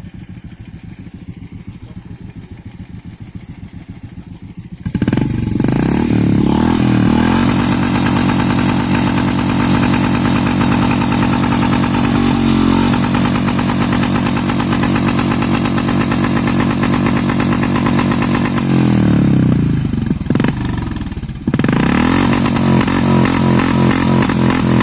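Motorcycle engine running: a low hum at first, then suddenly much louder about five seconds in, its pitch sweeping up as it revs and holding steady. Near the end it drops away briefly, then cuts back in loud.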